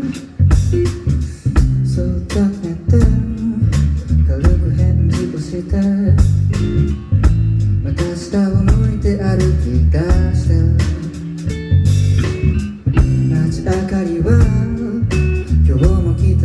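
Live band music: drums and a heavy bass line under guitar, playing continuously with a steady beat.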